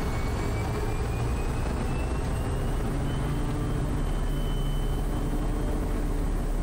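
Quest Kodiak's Pratt & Whitney PT6A turboprop engine and propeller coming up to takeoff power at the start of the takeoff roll: a steady drone with a faint whine rising slowly in pitch, the low end growing stronger about four seconds in.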